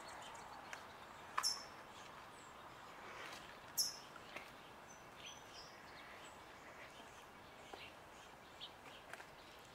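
Small birds chirping: a few short, high chirps, the loudest about a second and a half in and again near four seconds, with fainter scattered chirps over a quiet outdoor background.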